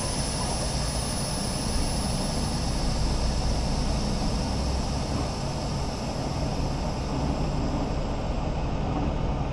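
2016 International Lonestar semi-truck's engine running steadily, heard from inside the cab as an even low rumble with a steady hiss over it.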